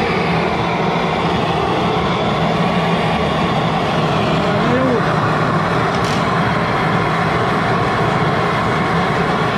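Gas torch burner firing into a small firebrick melting furnace: a steady, loud rush of flame, heating a crucible of metal to melt it for casting.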